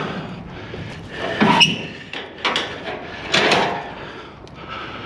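Scrap metal being shifted and handled, with clanks and scraping and two louder rattling bursts, about one and a half and three and a half seconds in.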